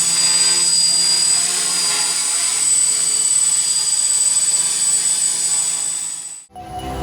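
Multirotor drone's brushless motors and propellers running with a steady high-pitched whine and buzz. It cuts off suddenly near the end, where music starts.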